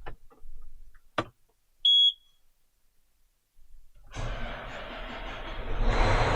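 A click, then one short, high electronic beep from a farm machine's cab. About two seconds later a machine starts up and runs steadily, getting louder near the end.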